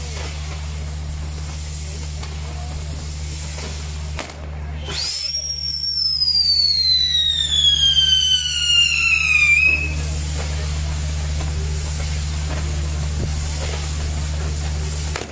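Fireworks castle burning: a steady hissing of burning pyrotechnics over a constant low rumble. About five seconds in, a loud firework whistle shoots up and then slides slowly down in pitch for about four seconds before cutting off.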